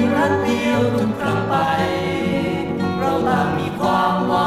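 A 1980s Thai folk-pop song played from a vinyl LP: voices singing over guitar accompaniment.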